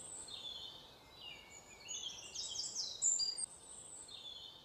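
Birds singing: repeated high, chirping phrases of quick stepped notes over a faint background hiss, loudest about three seconds in.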